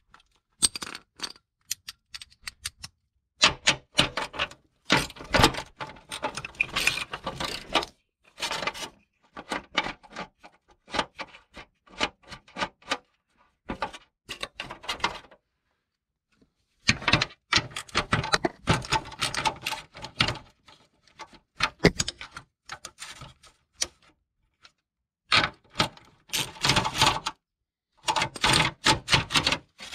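Hand tools and metal fasteners clicking and rattling in irregular bursts as a car's headlight bracket is unbolted and worked loose.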